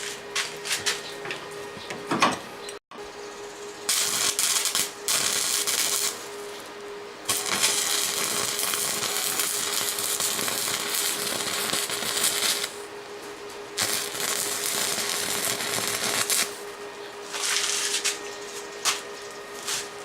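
Arc welding on a broken steel machete blade: the arc crackles and hisses in several runs of a few seconds, the longest about five seconds, with short pauses between them. A steady hum runs underneath.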